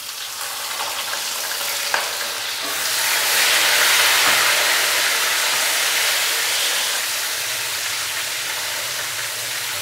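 Chopped tomatoes and lemon slices sizzling in hot oil with whole spices in a metal karahi, stirred with a silicone spatula. The sizzle grows louder about three seconds in and then eases a little.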